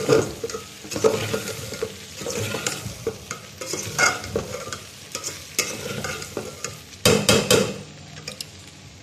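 Slotted metal spatula scraping and stirring chopped raw okra frying with spices in a metal pot, over a light sizzle of oil. The strokes come irregularly, with a flurry of louder, quicker scrapes about seven seconds in.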